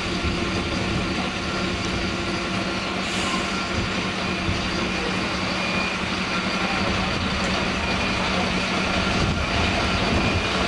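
Heavy emergency vehicle's engine running steadily at a constant low pitch, with a hum and hiss.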